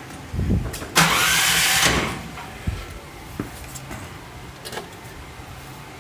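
Key start of a DuroMax 16 hp single-cylinder gasoline engine in a Bobcat 310 skid steer. It catches about a second in, runs loud for about a second, then settles into a steady idle.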